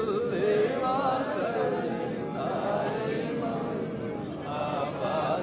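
Men's voices chanting together in a drawn-out, melodic religious recitation.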